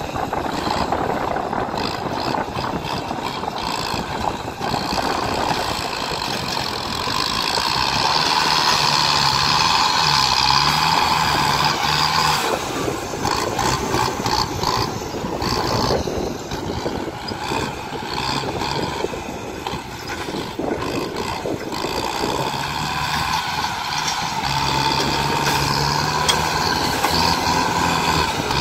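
Kubota farm tractor's diesel engine running under load as its front dozer blade pushes soil, the engine note rising and falling as it works, louder from about eight seconds in and again near the end.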